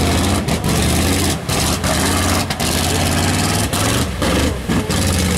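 Lifted 4x4 Jeep's engine running hard under heavy throttle as it churns through a deep mud pit. The engine note holds steady, with several brief dips about one and a half, two and a half and four seconds in.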